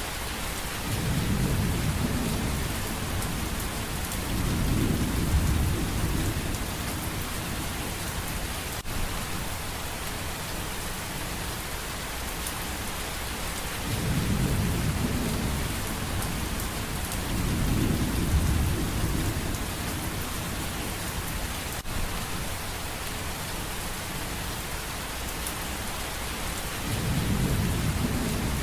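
Steady rain hissing, with low rolling thunder that swells up several times, each rumble lasting a second or two.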